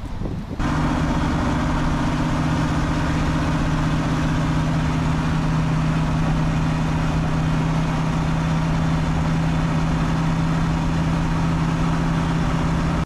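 Car engine running at a steady speed: a constant low hum with a hiss over it. It starts abruptly about half a second in and stops suddenly at the end.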